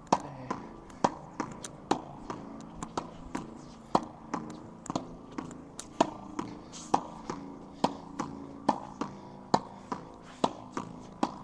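Tennis ball volleyed against a wall: the racket strings and the wall hit the ball in turn in a quick, steady rally of sharp knocks, about two to three a second.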